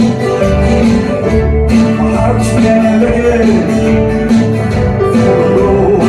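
Live band playing amplified music: acoustic and electric guitars with bass, keeping a steady beat.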